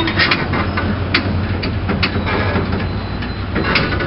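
Diesel-electric freight locomotive (GM G26CW type with an EMD 16-645 engine) idling with a steady low hum, with a few sharp clicks and knocks from the standing train.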